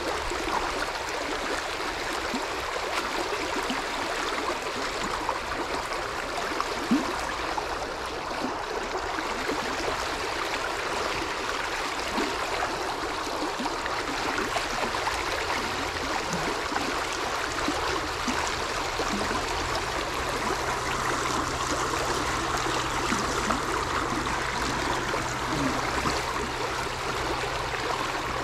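Water of a small shallow river running steadily, a continuous rush with small gurgles and trickles.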